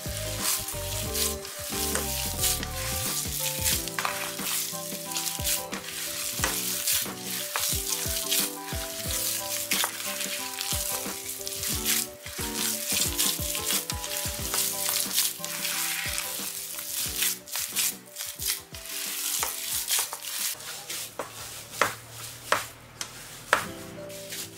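Bare hands kneading and squeezing a wet bulgur paste (çiğ köfte mix) with grated tomato worked in, in a metal pan: a continuous wet, crackly squishing with many small sharp clicks. Background music plays underneath.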